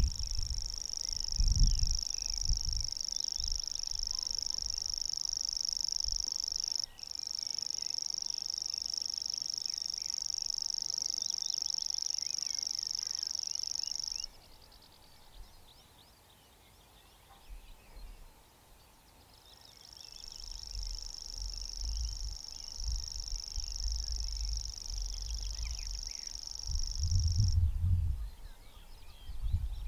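Grasshopper warbler reeling: a high, steady, insect-like trill held for about fourteen seconds with a brief hitch about seven seconds in. It starts again softly about five seconds later and reels for another eight seconds. Low rumbles are heard at the start and near the end.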